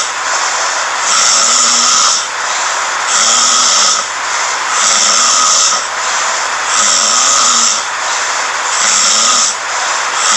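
A sleeping person snoring in a regular rhythm: five snores about two seconds apart, each a hissing rasp with a low buzz, over a constant background hiss.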